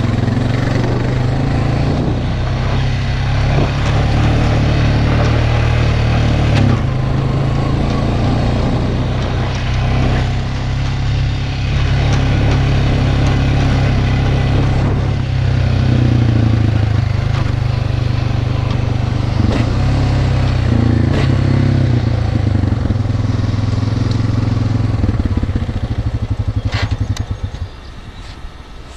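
ATV (four-wheeler) engine running under way as it is ridden along a rough grass track. Near the end the engine drops to a slow, lumpy idle and the sound gets quieter.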